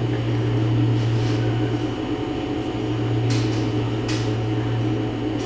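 Steady low machine hum, with a few faint brief swishes about a second in and twice more past the middle.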